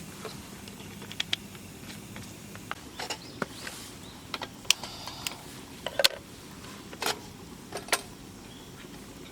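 A dozen or so light, sharp clicks and knocks at irregular intervals, over a faint steady background; a low hum fades out in the first couple of seconds.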